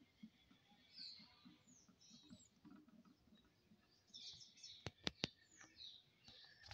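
Faint birds chirping, short gliding calls on and off. Three sharp clicks come in quick succession about five seconds in.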